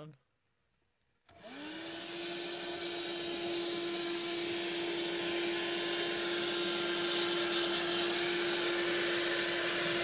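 Portable 12-volt wet-and-dry car vacuum cleaner switched on about a second in: its motor spins up within a fraction of a second, then runs steadily with a constant tone over the rush of air.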